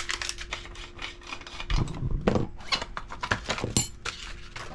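Irregular rubbing, scraping and clicking of packaging being handled as a new road bike frame is taken out of its box.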